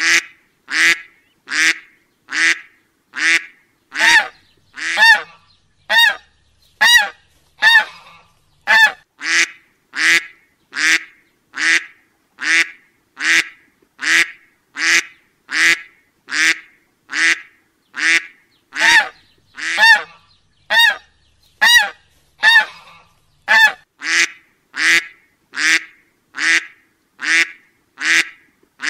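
A duck quacking over and over at an even pace, a little more than one short, harsh quack a second.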